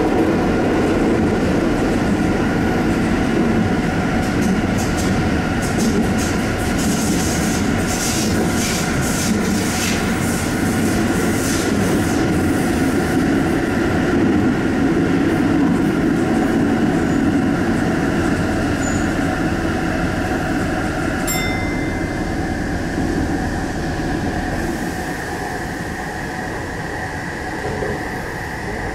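Sendai Subway Tozai Line 2000 series train running between stations: a steady rumble of wheels on rail under a motor whine. There is a stretch of rattling clicks about a third of the way through, and a higher steady tone comes in about three quarters of the way through.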